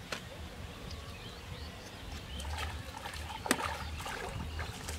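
Outdoor pond-bank ambience: small birds chirping over a steady low rumble, with two sharp clicks, the louder one about three and a half seconds in.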